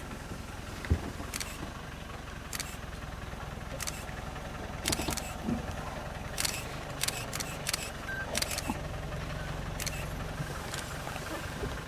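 Game-drive vehicle's engine idling steadily, with scattered sharp clicks and one louder knock about a second in.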